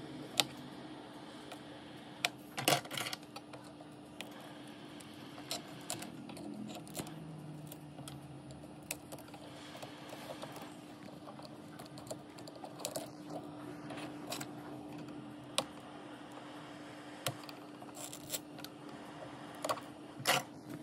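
Cracked glass back panel of an iPhone 8 being pried and scraped off with a hobby blade: scattered sharp clicks and crackles of glass breaking away, a cluster about three seconds in and several more near the end, over the steady hum of a hot air gun blowing on the glass.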